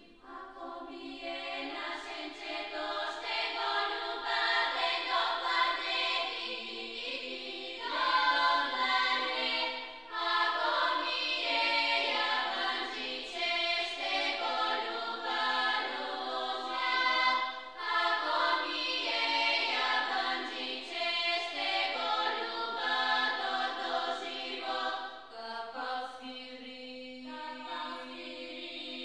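Background music of choir voices singing slow, sustained chords.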